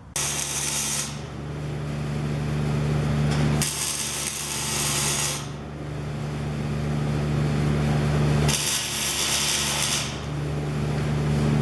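Electric arc welding on steel square tube: a continuous crackling hiss over a steady low electrical hum, with three stretches of louder, brighter hiss.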